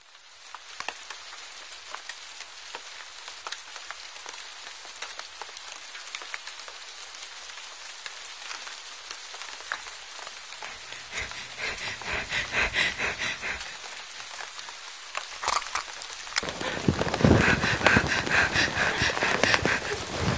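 Steady rain falling, with many small drip and patter clicks. From about halfway a rhythmic pulsing sound, about three pulses a second, comes in over the rain, and it grows louder near the end.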